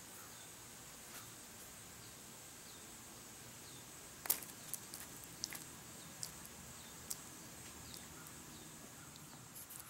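Faint steady background hiss with a thin high hum and a few soft, short falling chirps. From about four seconds in comes a scatter of small sharp clicks, the first the loudest.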